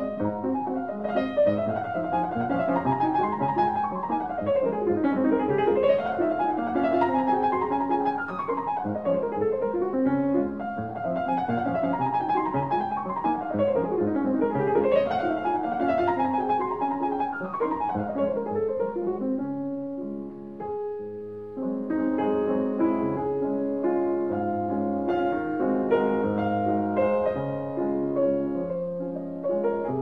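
Background piano music: flowing runs of notes sweeping down and back up, with a brief lull about two-thirds through before steadier chords take over.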